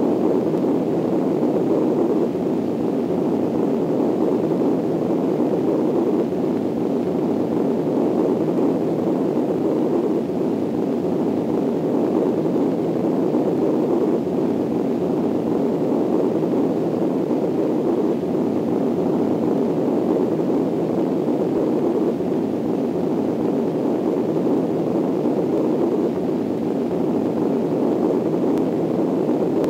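Steady, unbroken roar of rushing wind, a tornado sound effect laid over silent film footage, with no changes or distinct events.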